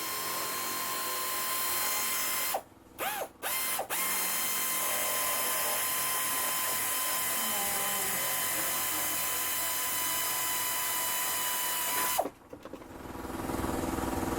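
Pneumatic air shears running while cutting sheet metal: a steady hiss and whir that stops and starts a few times about three seconds in, then cuts off near the end.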